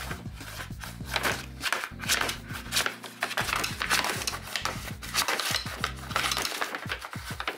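Large kraft paper bag crinkling and rustling in repeated bursts as a cat moves and paws around inside it.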